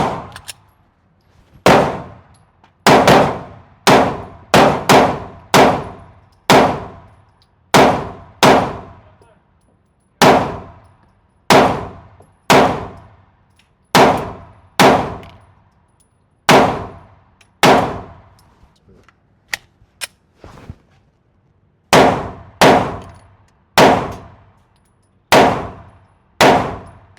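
About two dozen single gunshots at an indoor range, fired one at a time at an uneven pace, each followed by a long ringing echo, with a short pause a little past the middle.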